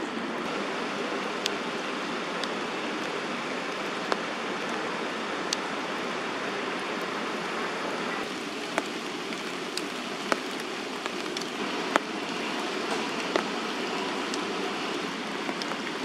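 Steady rain falling, a continuous hiss, with sharp taps of single drops landing close by every second or so. The rain's tone shifts slightly about eight seconds in.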